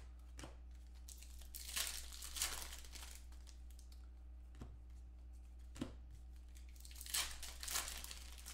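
Foil trading-card pack wrapper torn open and crinkled by hand, in two bouts, about two seconds in and again about seven seconds in, with a couple of light clicks between. A steady low hum runs underneath.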